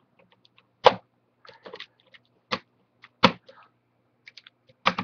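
Plastic clips of an HP Pavilion dv6-7010US laptop's screen bezel snapping loose as a thin metal pry tool is worked along the seam between the bezel and the back of the screen assembly. There are three sharp snaps, with lighter ticks of plastic and tool between them.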